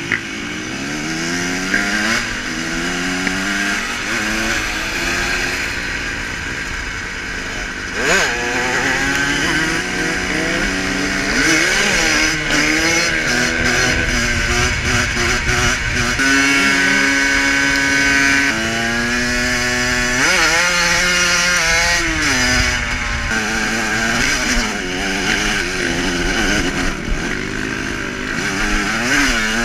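Off-road motorcycle engine revving up and falling back again and again as the bike accelerates and shifts gears, with a short steady stretch about two-thirds of the way through.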